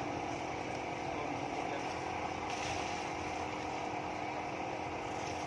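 Steady street traffic noise with an engine running, an even hum.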